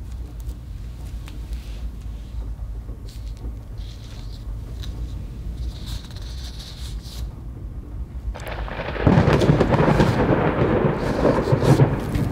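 Horror-film soundtrack: a steady low rumble with faint scrapes and rustles, then about eight seconds in a loud, crackling rumble swells in abruptly and carries on, the loudest part.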